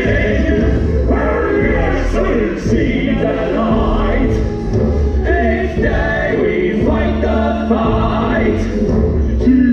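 A group of voices singing a musical-theatre number over a backing track with a strong bass line.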